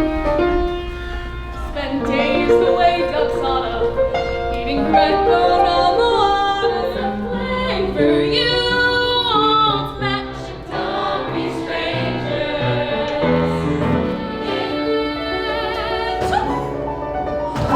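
Young performers singing a musical-theatre song over instrumental accompaniment, with a long high note held with vibrato about eight seconds in.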